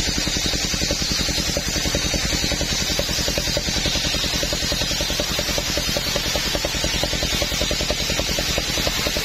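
Table circular saw ripping a coconut-wood plank, a steady high cutting hiss over the machine's rapid, even pulsing.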